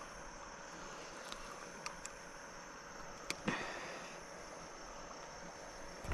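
Steady outdoor background hiss, with a few light clicks and one sharper click about three and a half seconds in.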